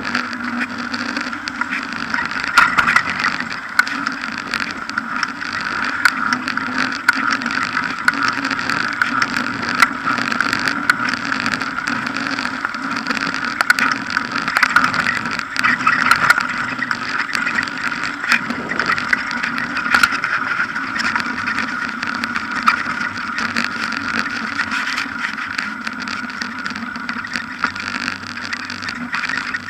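Riding noise of a bicycle, picked up by an action camera mounted low on the bike: a steady rolling drone from the tyres on the road, with frequent small clicks and rattles from bumps.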